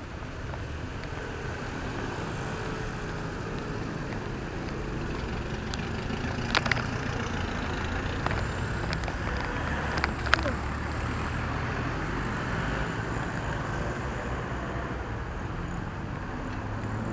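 Steady road traffic noise from passing cars and pickup trucks, with two sharp clicks, one about six and a half seconds in and one about ten seconds in.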